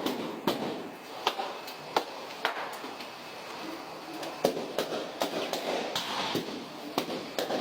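Latex balloons being popped one after another: about ten sharp, irregular pops over a low background hiss.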